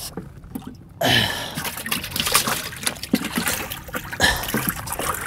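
Water splashing and trickling in a bass boat's livewell as a hand reaches into it, starting suddenly about a second in, with a few knocks mixed in.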